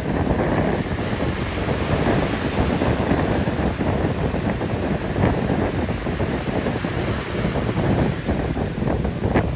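Strong wind buffeting the microphone over surf breaking and washing on the shore.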